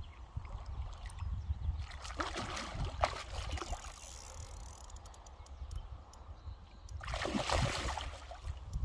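A hooked fish splashing and thrashing at the water's surface as it is played on a bent rod, in two bouts, about two seconds in and again about seven seconds in.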